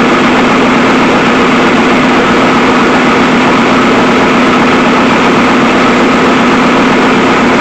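Ski boat's carbureted Thumper Power (IMCO) marine engine running steadily at idle, after repairs to its freeze plug, motor mount and power steering hose; the owner judges that everything seems to be okay.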